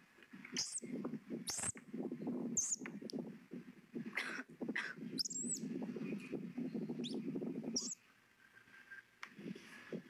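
Squirrel monkeys giving short, high chirps about a dozen times, some sliding in pitch, over a busy, rapid low smacking as they suck milk from a baby bottle. The low smacking stops about eight seconds in and picks up again near the end.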